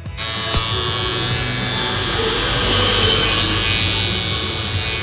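Electric hair clipper switched on just after the start and running with a steady, loud buzz: a clipper whose motor is running too loud.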